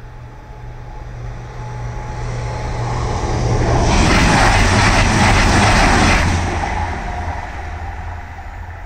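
Express passenger train passing at speed: a rush of wheel and air noise that builds for about three seconds, is loudest for some two seconds as the train goes by, then fades away.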